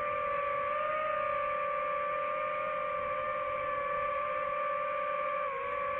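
DJI FPV drone's propellers whining steadily in flight, the pitch rising slightly about a second in and dipping briefly near the end.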